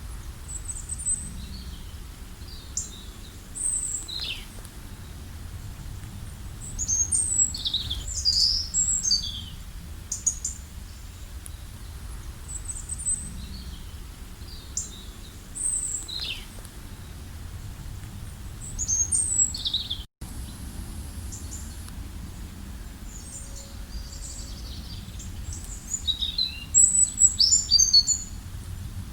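Songbirds singing in short, repeated chirping phrases, several overlapping at times, over a steady low rumble. The sound cuts out for a split second about two-thirds of the way through.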